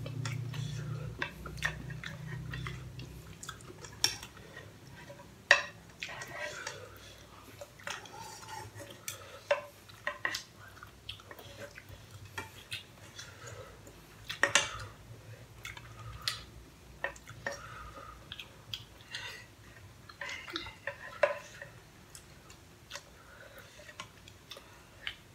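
Chopsticks and a metal spoon clinking and scraping against a saucepan as pasta is picked up and eaten from it, in irregular sharp clicks.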